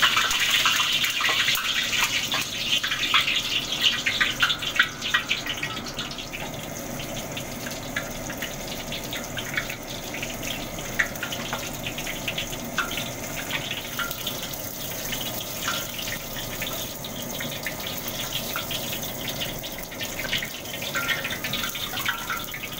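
Breaded chicken pieces deep-frying in a wok of hot oil, sizzling with many small crackles. The sizzle is loudest for the first several seconds after the pieces go in, then settles into a steadier, softer bubbling.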